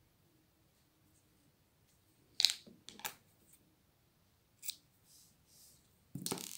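Scissors snipping a yarn tail, two sharp snips about half a second apart in the middle, then a fainter click. Near the end there is a longer, louder noise of handling.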